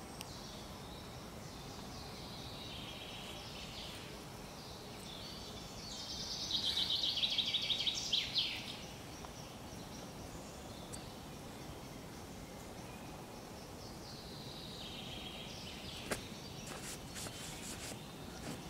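Outdoor ambient noise with birds calling. A louder rapid trill lasts about two seconds around the middle, and a single sharp tick comes near the end.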